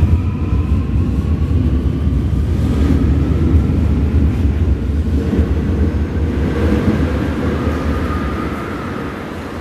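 Seoul Subway Line 9 electric train pulling out of an underground station. Its motors whine up in pitch over a heavy low rumble of wheels on rail, and the sound fades over the last few seconds as the last car clears the platform.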